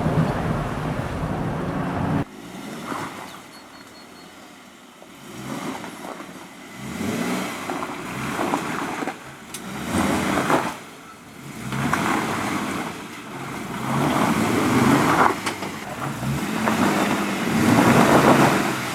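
Jeep Wrangler's 3.6-litre V6 revving off-road, the throttle opening and easing off in repeated swells every couple of seconds. The first two seconds hold a louder rushing noise that cuts off abruptly.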